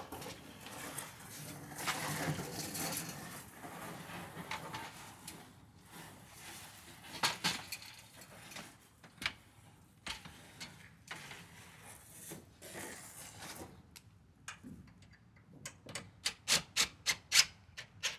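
Hand work on a storm door installation: rubbing and scraping with scattered knocks, then a quick run of about eight sharp clicks near the end.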